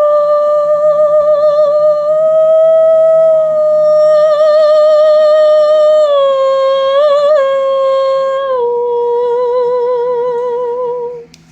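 A person humming a slow, sad-sounding wordless tune. One long held note with vibrato steps down to a lower note about halfway through, wavers briefly, then steps down once more and stops shortly before the end.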